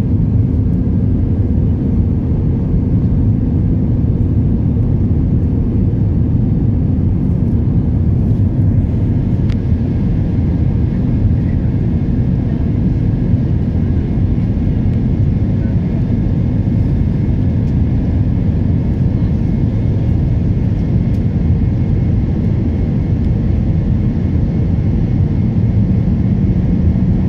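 Steady low rumble of an Airbus A320's jet engines and airflow, heard inside the cabin during the climb after takeoff.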